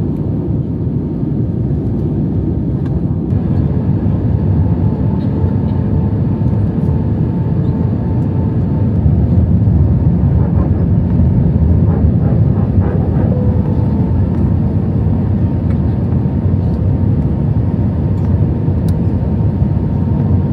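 Airbus A320 cabin noise on descent: a steady, deep rush of airflow and engine noise, with a couple of faint steady tones above it, swelling slightly louder through the middle.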